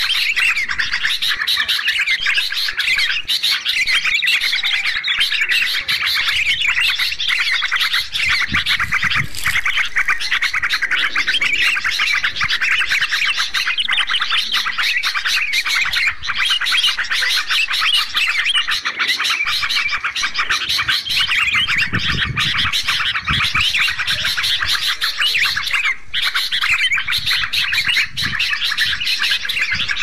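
Dense, continuous chattering and chirping of many bulbuls, yellow-vented bulbuls and sooty-headed bulbuls, calling over one another without a break: a lure recording for attracting wild bulbuls.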